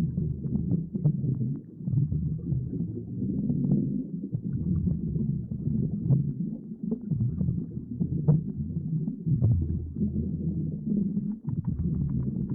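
Underwater ambience sound effect: a muffled, low rumbling gurgle with many small pops and clicks scattered through it.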